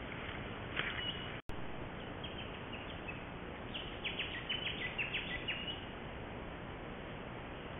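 Small bird giving short high chirps, once about a second in and then in a quick run of a dozen or so between about four and six seconds, over the steady hiss of a trail camera's microphone. The sound cuts out for an instant about one and a half seconds in.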